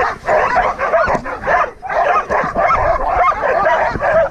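A team of harnessed sled dogs barking, yipping and whining together in a dense, continuous chorus, excited before the sled sets off.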